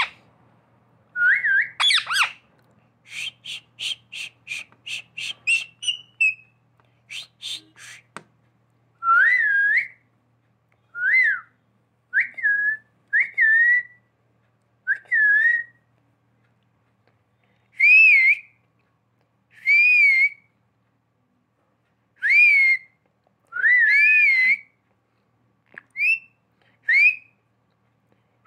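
Pet rose-ringed parakeet whistling a human-style whistle: first a quick run of short notes, about four a second, then a string of separate rising-and-falling whistled phrases every second or two.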